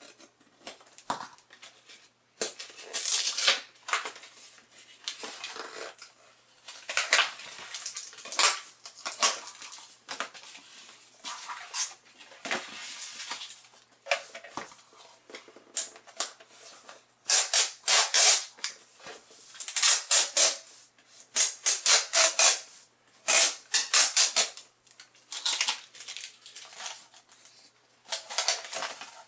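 A pocketknife slitting the seals on a GoPro retail box, then the cardboard box and its clear plastic display case being pulled apart and handled. Sharp crinkles, clicks and scrapes come in irregular bursts, densest and loudest in the second half.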